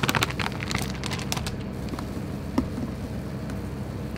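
Wire whisk clinking against a stainless steel bowl while mixing tempura batter: quick strokes for the first second and a half, then only a few light clicks.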